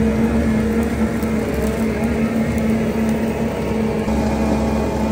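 Skid-steer loader's engine running steadily under load, driving a hydraulic ground-milling attachment as it grinds through thick, layered old grass.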